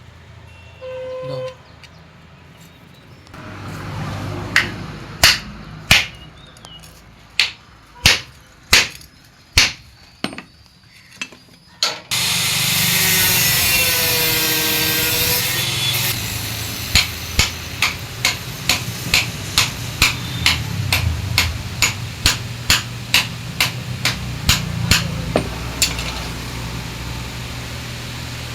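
Hammer striking as a wooden handle is driven into an iron tool head to fit it tight: sharp separate blows, about one every second; a loud steady noise with a wavering pitch takes over for about four seconds, then lighter, faster strikes follow.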